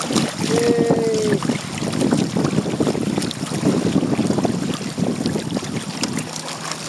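Wind buffeting the microphone and water splashing against the hull of a Hobie Tandem Island sailing kayak under way. A short, slightly falling tone sounds about half a second in and lasts under a second.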